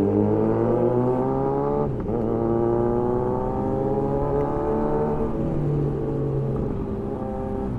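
Kawasaki Z900's inline-four engine accelerating under load: the pitch climbs, drops sharply about two seconds in as it shifts up a gear, climbs again, then falls away a little after five seconds as the throttle is rolled off.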